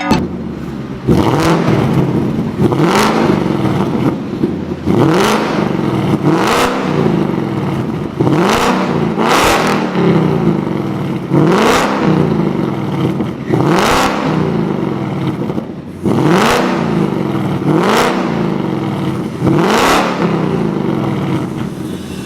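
Ford Mustang Mach 1 engine being revved through a hi-flow sports cat and H-pipe exhaust: about a dozen quick throttle blips, each rising in pitch and falling back to idle, a second or two apart.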